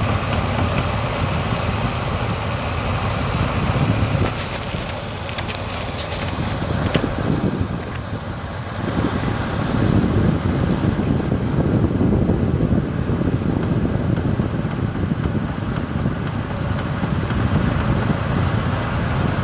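A 2005 Pontiac G6 running, a steady low engine and wind noise, with a cluster of light clicks about five to seven seconds in.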